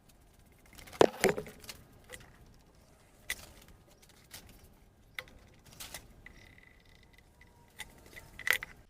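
Scattered metallic clinks and knocks of clamps being handled and fitted onto a glued, sandwiched panel, the loudest about a second in and a cluster near the end, with a faint thin squeak partway through.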